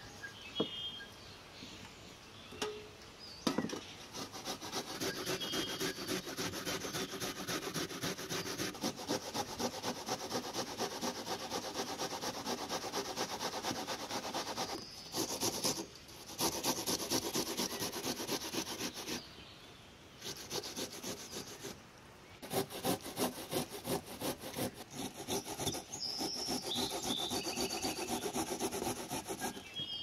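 Garlic cloves being grated on a metal box grater: quick, even rasping strokes, broken by a few short pauses in the middle.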